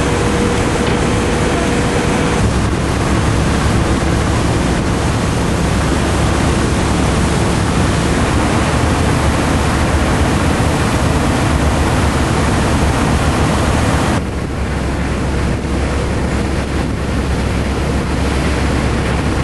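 Car ferry under way: loud rushing of the churning wake against the hull with a steady low engine drone, and a thin steady whine that stops about two seconds in. About 14 seconds in the sound drops to quieter wind and water noise.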